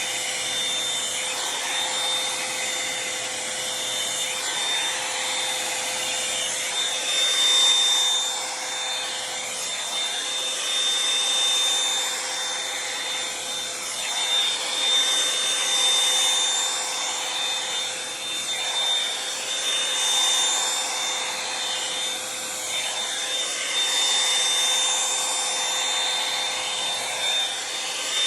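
Revlon One-Step hair dryer brush running continuously: a rush of air with a steady high whine from its motor, the level swelling and dipping as it is worked through hair.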